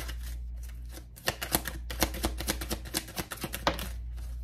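Tarot cards being shuffled by hand: quick runs of crisp card flicks and clicks, with a short lull about a second in.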